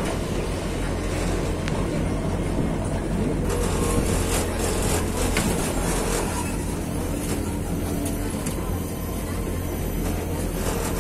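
Open-sided shuttle bus running, heard from a seat inside: a steady low hum with road and wind noise that gets hissier about three and a half seconds in.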